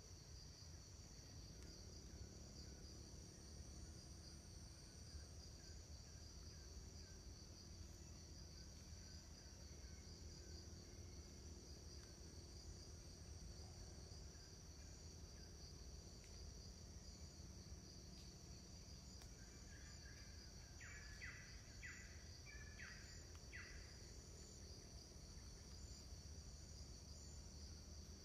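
Faint insects trilling steadily at a high pitch, two overlapping tones held without a break. About three-quarters of the way through, a quick run of about six short chirps.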